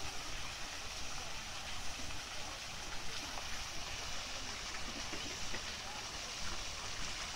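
Steady rushing and splashing of an artificial waterfall pouring into a pool.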